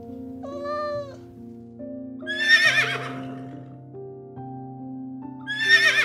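A cat meows once near the start, then a horse whinnies twice, about two and a half seconds in and again near the end, each whinny quavering and louder than the meow. Steady background music runs under the animal calls.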